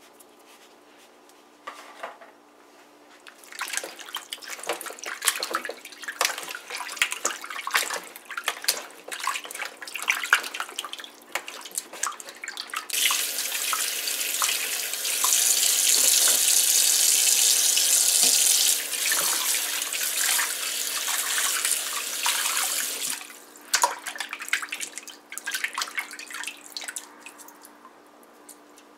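Water splashing as hands rub raw chicken wings in a plastic bowl of water. About a third of the way in, a kitchen tap runs steadily over them for roughly ten seconds, then the splashing carries on for a few seconds more.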